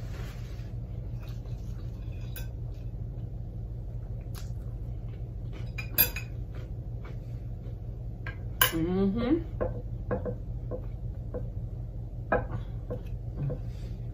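A fork clinking and scraping against a plate as a sandwich is cut and picked at, in scattered light taps with two sharp clinks about six and nine seconds in, over a steady low hum.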